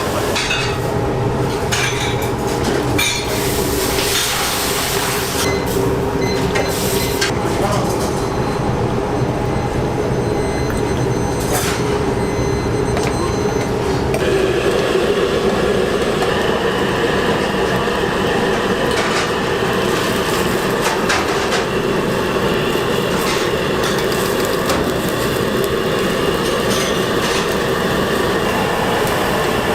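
Busy commercial kitchen noise: a steady loud rush with scattered clanks and clicks of metal cookware.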